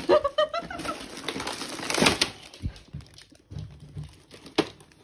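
A spaniel rummaging in a plastic shopping bag of groceries: crinkling and rustling of the bag, loudest about two seconds in, with a few light knocks of the packaging afterwards.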